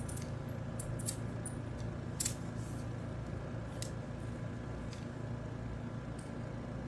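Light clicks and taps of the sectioned MIL whip's segments being slotted together by hand, a few scattered clicks over a steady low hum.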